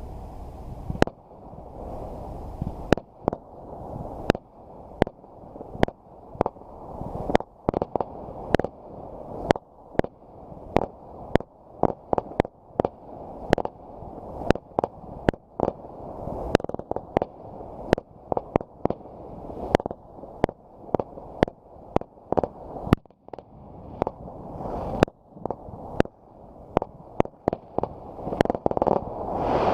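Fireworks going off: a long run of sharp bangs, about one or two a second, over a continuous low rumble.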